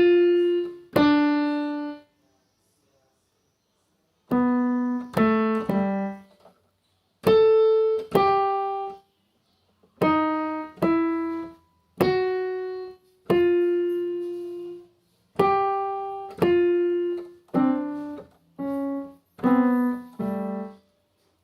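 Keyboard instrument playing a slow melody one note at a time, in short phrases of two to four notes with brief silences between them.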